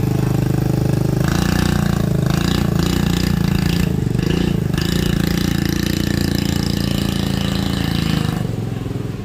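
Motorbike engine running close by with a steady note that wavers briefly about four seconds in, then falls away and gets quieter near the end.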